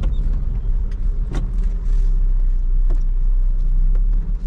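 A car running with a steady low rumble and a few light clicks.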